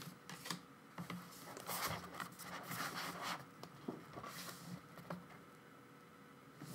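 Soft rustling and small scattered clicks of album photocards and paper inserts being handled and sorted.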